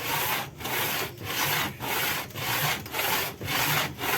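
Honda Vario 125 cylinder head being slid back and forth on sandpaper laid flat on glass: an even rasping stroke a little under twice a second. The head is being lapped flat to check it for warping.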